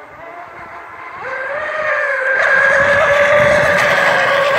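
Fast electric radio-controlled model racing boat running flat out: a steady high-pitched motor whine that swells as the boat nears and passes close, with the hiss of its spray underneath.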